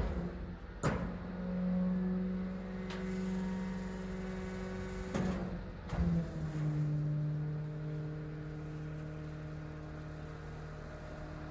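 Garbage compactor truck's hydraulic packing mechanism running through its cycle. The engine and hydraulic pump give a steady hum that drops slightly in pitch about six seconds in, as the scraper and slide plate move. Several sharp knocks come from the mechanism.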